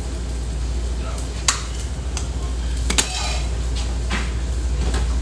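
Diner grill-line kitchen clatter: utensils and dishes knocking and clinking a few times, sharpest about a second and a half in and again about three seconds in, over a steady low hum.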